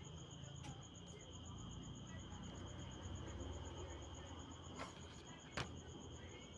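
Insects chirping in a steady, rapid pulse over a low hum, with a few faint clicks about a second in and near the end.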